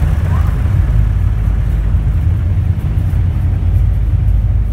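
Tugboat's diesel engines running under heavy load, heard from inside the wheelhouse as a loud, steady low rumble, while the tug backs its engines in reverse to pull on its tow line.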